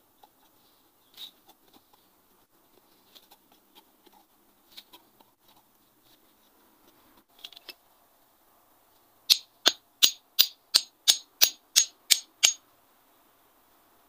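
A hammer striking a metal rod to drive it into the ground: about ten sharp, ringing metal blows, roughly three a second, beginning a little past the middle. Before them come faint scrapes and taps of hand-digging in soil.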